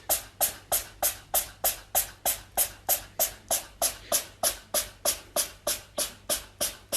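An evenly spaced rhythmic swishing or scratching noise, about three strokes a second, each stroke short and hissy.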